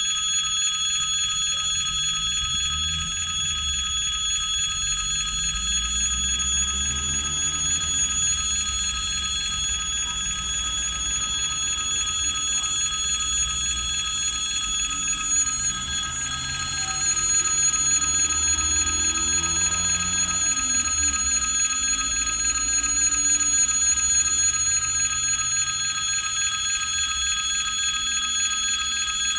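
Electric warning bell of a railway pedestrian crossing ringing continuously while the pedestrian light shows red, the signal that the crossing is closed. A low rumble with slowly rising and falling pitches sounds under it and grows louder a little past halfway.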